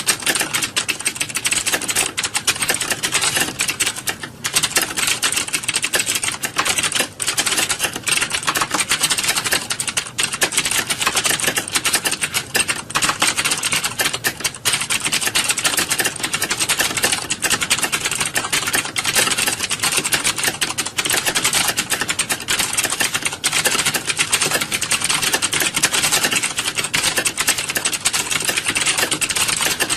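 Many computer keyboards being typed on at once: a dense, continuous clatter of overlapping key clicks.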